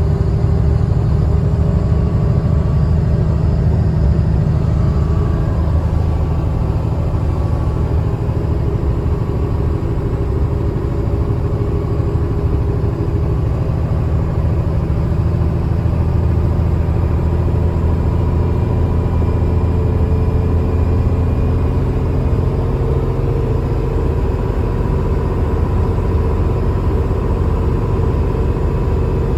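Mercedes-Benz O307 city bus's diesel engine and drivetrain rumbling steadily as the bus drives, heard from inside the passenger cabin, with faint steady whines above the rumble.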